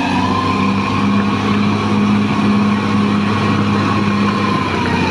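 Caterpillar D6R XL bulldozer's diesel engine running hard under load, its pitch held steady and easing slightly near the end, with a steady high whine alongside.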